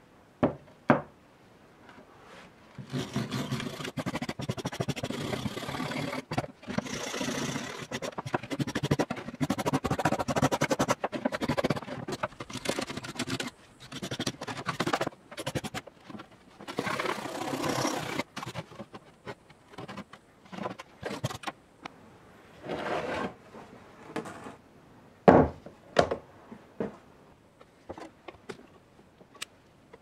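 Rusty iron padlock being scraped and brushed to clear caked dirt and rust, a run of rapid scraping strokes lasting about fifteen seconds, then scattered taps and knocks of the lock on the work surface, one loud knock about three-quarters of the way through.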